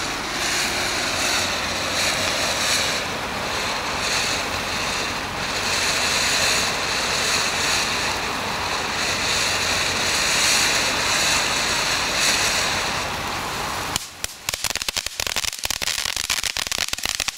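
Ground fountain firework spraying sparks with a steady rushing hiss. About fourteen seconds in it switches to dense, rapid crackling.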